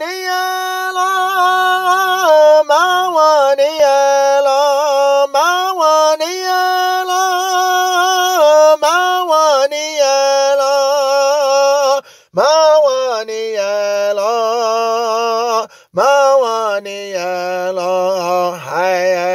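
A single voice singing long held wordless notes, stepping from one pitch to the next with short slides, with two brief breaks for breath about twelve and sixteen seconds in.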